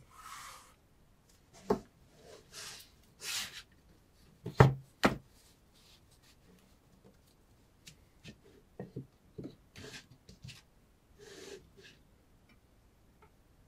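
Wooden blocks of a knife-test jig being handled and set down on a table: a few hard knocks, the loudest two close together about four and a half seconds in, with short sliding and rustling sounds between and light clicks later on.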